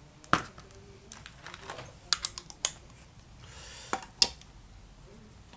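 Spark plug sockets and a ratchet being handled: a string of sharp separate clicks and clinks, with a short rattling scrape a little past halfway.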